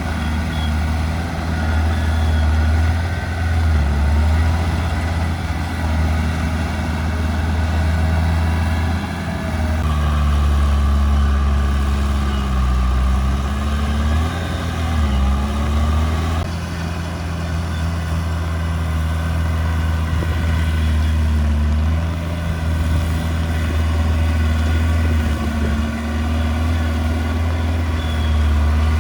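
Diesel engine of a Komatsu D31P bulldozer running steadily and loudly, its pitch dipping and recovering several times as the load changes while pushing stone.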